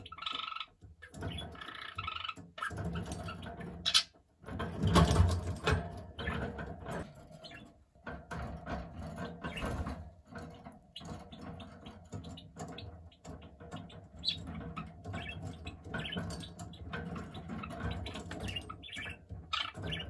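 Budgerigar warbling: a continuous run of chattering song with chirps. About five seconds in there is a louder, noisier bump.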